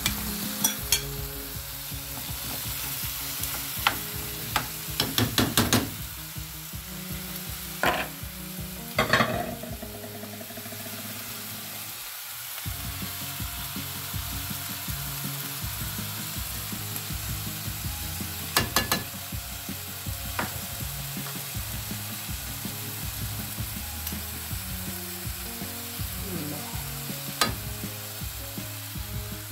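Stir-fry filling of onion, shrimp, grated carrot and mushrooms sizzling steadily in a frying pan as raw minced meat is added. A few sharp clicks and knocks of utensils against the pan and bowl come about 4 to 9 seconds in and again later.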